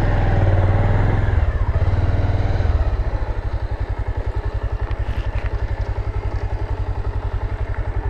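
Motorcycle engine idling with an even, rapid pulse, a little louder for the first couple of seconds and then settling to a steady idle about three seconds in.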